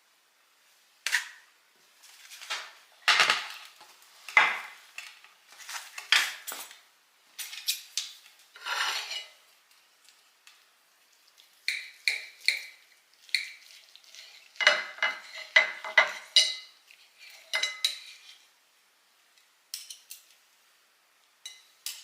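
Knife and fork scraping and clinking on a plate as a baked chicken breast is cut up, in irregular strokes with a few short ringing clinks.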